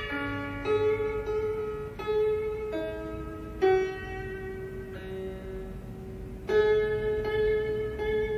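Zheng (Chinese zither) with sixteen metal strings, plucked in a slow melody: single notes ring and fade away, with stronger plucks about halfway through and again near the end.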